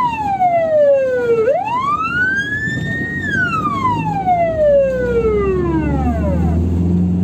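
SGU Elect electronic emergency-vehicle siren sounding its first tone through the roof-mounted horn speaker: a slow wail that climbs for under two seconds to a high peak and then falls away over about three seconds, fading out near the end.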